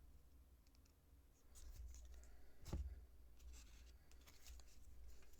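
Faint handling of trading cards and booster-pack wrappers: soft rustles, slides and small clicks, with one sharper tap nearly three seconds in.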